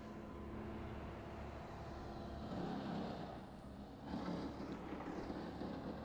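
Road-vehicle noise: a steady low hum, with noise swelling and fading twice.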